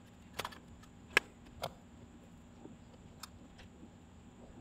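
A few scattered sharp knocks and taps, the loudest about a second in, from a wooden beam and a level being handled and set in place on top of the posts.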